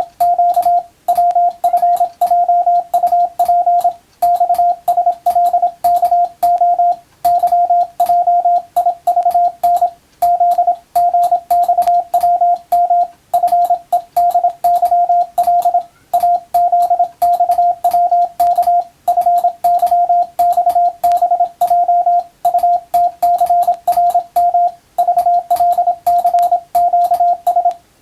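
Morse code sent as a steady CW tone of about 700 Hz, keyed rapidly into dots and dashes in runs of characters, with brief pauses every two to three seconds between words. Each key-down and key-up carries a faint click.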